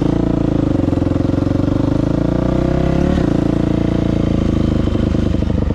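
2000 Yamaha YZ426F dirt bike's four-stroke single-cylinder engine running steadily, its note dropping about three seconds in.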